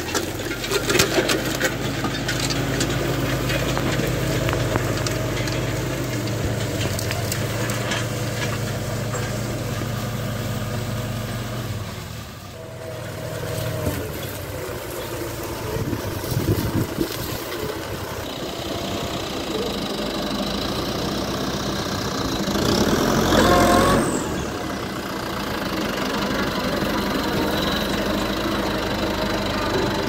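A Massey Ferguson 3085 tractor's diesel engine running steadily under load as it pulls a disc harrow through corn stubble, with the harrow's discs and frame clattering over the ground in the first several seconds. The engine sound swells briefly a little over twenty seconds in.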